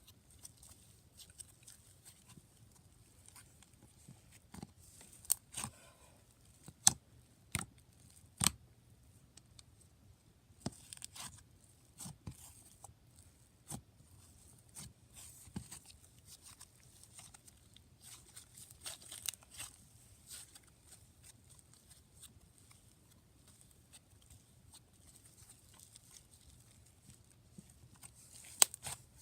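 Mint chocolate chip cloud puff slime being stretched and handled, giving faint soft tearing sounds and scattered sharp clicks and pops, a few louder ones among them.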